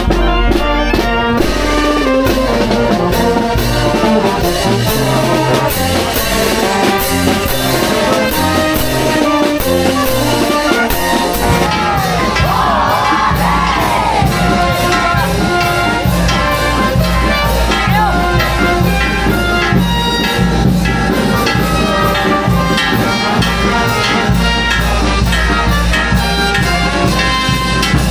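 Brass band music, trumpets over a steady beat.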